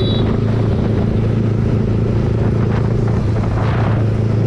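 Yamaha MT-15's 155 cc single-cylinder engine running at a steady cruise through an aftermarket Akrapovic exhaust with its dB killer removed.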